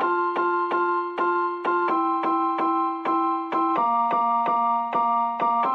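Background music: a keyboard tune of evenly paced, plucked-sounding notes over held low notes that change about every two seconds.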